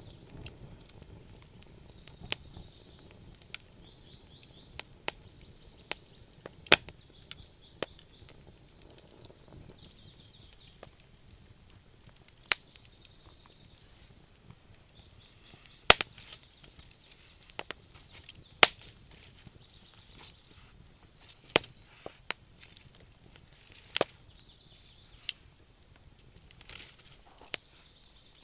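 Wood fire burning in a fireplace, with irregular sharp crackles and pops, some of them loud snaps, over a soft high hiss that comes and goes.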